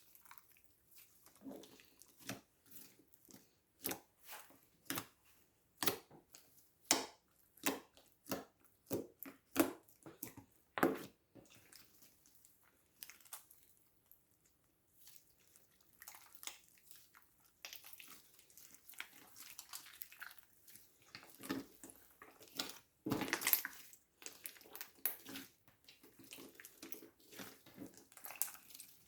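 Hands squishing and pressing slime: a run of wet clicks and pops, about one a second at first, then a denser stretch of crackly squelching.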